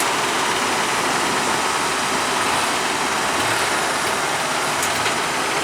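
Heavy engine running steadily at a loud, even level.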